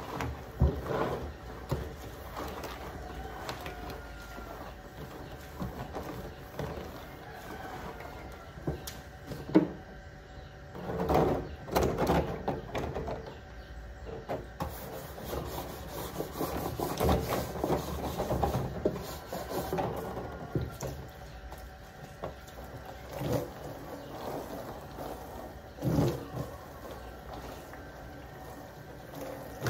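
A blue plastic silage drum being scrubbed clean by hand: irregular rubbing and scraping on the plastic, with a few sharp knocks.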